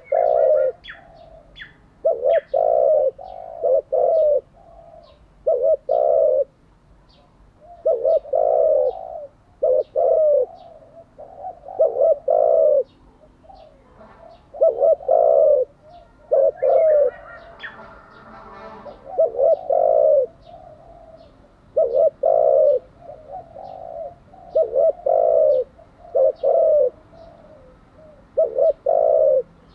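A spotted dove cooing over and over, each phrase a group of two or three low coos, repeating about every two seconds. Faint chirps of small birds run underneath.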